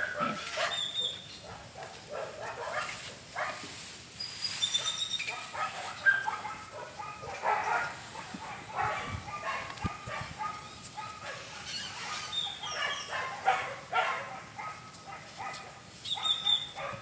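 Puppies play-fighting, with scattered short yips and barks.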